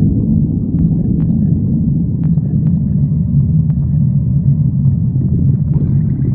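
Human stomach growling: a loud, continuous low rumble that wavers without a break, with a few faint clicks over it.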